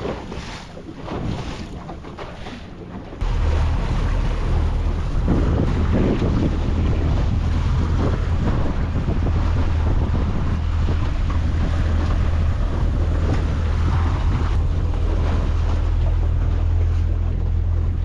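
Motorboat running at speed: a steady engine hum with wind rushing over the microphone and water noise. It starts abruptly about three seconds in, after a quieter stretch of wind and water.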